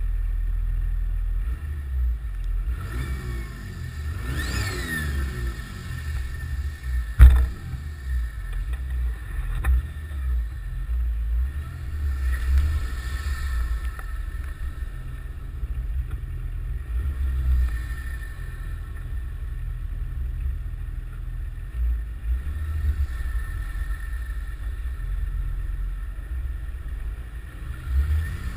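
Nissan Patrol Y60's 2.8-litre straight-six turbo-diesel running under load off-road, its turbo whistling, with the whistle gliding in pitch a few seconds in. A single sharp thump about seven seconds in is the loudest sound.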